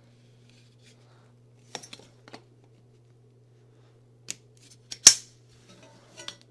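Powder-coated metal frame pieces of a Zinus metal smart box spring clicking and knocking against each other as they are fitted together by hand, with one loud sharp snap about five seconds in as a piece clicks into place.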